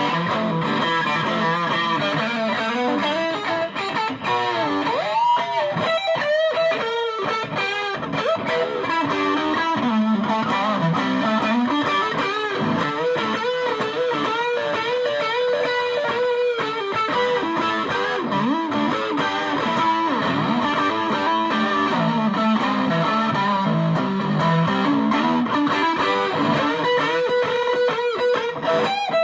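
Electric guitar played through a TC Electronic Dark Matter distortion pedal: a continuous line of sustained, overdriven notes with string bends and vibrato.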